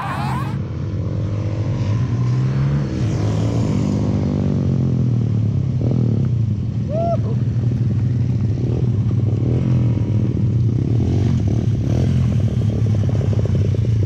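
Small single-cylinder mini bike and pit bike engines running at low revs close by. The engine sound is steady, with slight rises and falls in revs.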